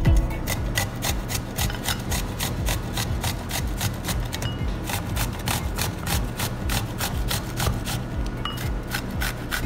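Cucumber being grated on a metal box grater: rapid, regular rasping strokes.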